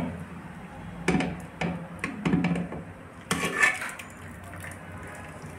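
A steel ladle knocks and scrapes against the inside of an aluminium pressure cooker while stirring and scooping soft boiled greens. There are a few light knocks, then a louder scrape about three and a half seconds in.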